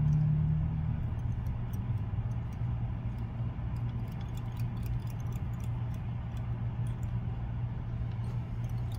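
Faint, scattered small ticks and clicks of hands working thread and wire at a fly-tying vise, over a steady low hum.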